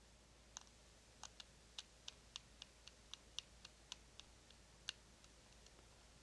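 A screwdriver fastening the retainer on a lawn mower's pull-cord recoil starter pulley, the retainer holding the starter pawls: a run of sharp, light clicks, about three or four a second, with one louder click near the end.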